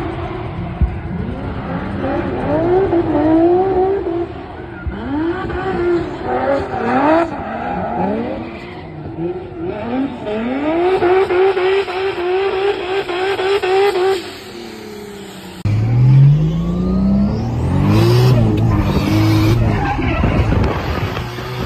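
Drift cars sliding through a corner, their engines revving up and down over and over with tyre squeal. About sixteen seconds in, the sound changes to inside a car's cabin, where the engine pulls up steadily through the revs.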